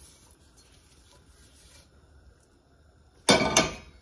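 Quiet, then about three seconds in a single loud metallic clatter with a short ring: a stainless steel bowl set down on the gas stovetop.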